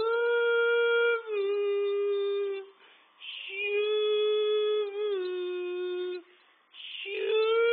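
Three long, steady howling notes, each about three seconds, with a breath drawn before each and a slight drop in pitch partway through.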